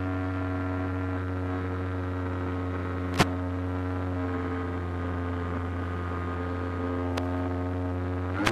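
Steady hum with many evenly spaced overtones on the onboard audio of an electric FPV model plane in flight. It is broken by a sharp click about three seconds in and a fainter click near the end.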